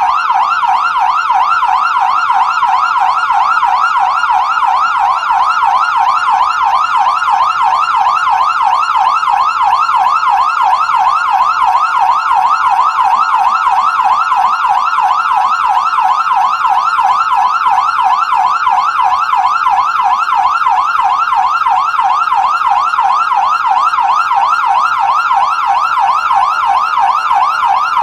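Ambulance siren in yelp mode: a rapid electronic wail rising and falling about three to four times a second, at a steady level.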